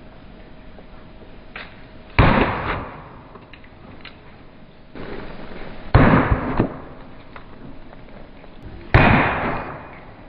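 Three heavy blows of a 10-pound sledgehammer smashing a metal aftermarket lawnmower carburetor on a wooden stump, three to four seconds apart, each a sharp crack that dies away within a second.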